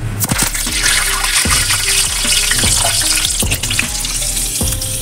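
A sprig of fresh curry leaves sizzling and crackling as it fries in hot mustard oil in a steel kadai. A loud burst of spitting hiss starts as the leaves go in and eases a little toward the end.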